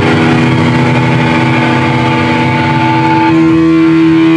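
Loud, sustained drone of distorted electric guitar amplifiers with steady feedback tones ringing over it. A higher feedback tone cuts off about three seconds in while a lower one swells.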